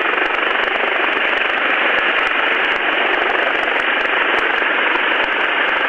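Steady rushing hiss over the helicopter crew's radio intercom, thin and band-limited, between spoken hoist calls.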